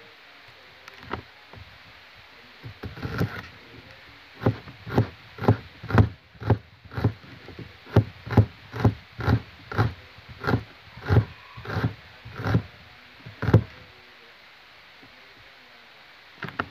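Kitchen knife slicing a red onion on a cutting board: a few scattered knocks, then a steady run of cuts about two a second, each one striking the board.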